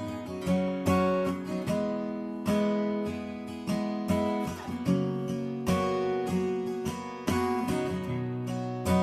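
Acoustic guitar strummed in chords that change every half second or so, each strum ringing on as it fades.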